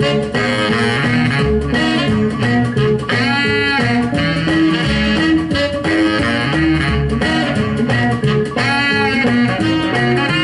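Instrumental break of a 1950s rhythm and blues record played on a turntable: a guitar plays lines with bent notes over a steady walking bass, and there is no singing.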